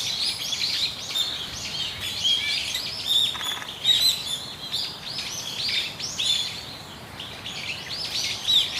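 Many small birds chirping together: quick, high, overlapping chirps and short down-slurred notes, several a second.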